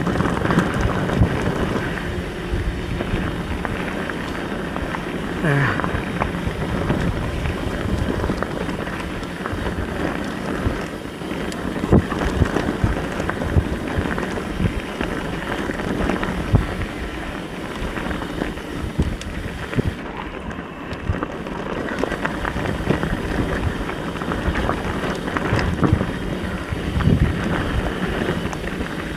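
Wind rushing over an action camera's microphone during a fast mountain bike descent, with the tyres rolling and the bike clattering over a rough dirt trail. Frequent sharp knocks come from bumps and rocks.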